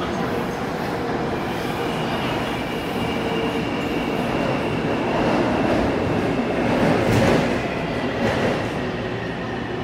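Taipei Metro C321 subway car running through a tunnel, heard from inside: a steady rumble of wheels and running gear with a faint high steady tone over it. It grows louder with a couple of knocks about seven and eight seconds in.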